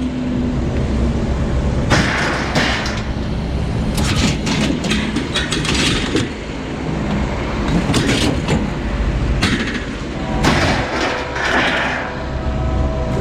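A truck's engine running as it is moved, with repeated metallic knocks and rattles and several bursts of hiss.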